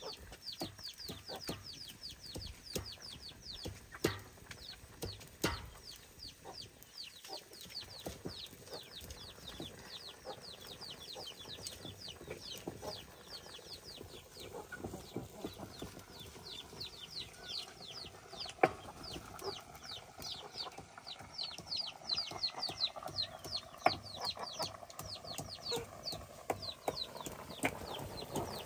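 Chickens calling: a steady run of short, high peeps that fall in pitch, several a second, broken by a few sharp knocks.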